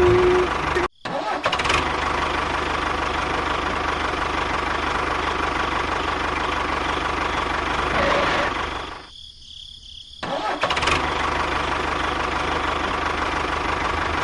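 Small motor of a DIY miniature construction vehicle running steadily with a constant whine. The sound cuts out abruptly for a moment about a second in, and again for about a second past the middle.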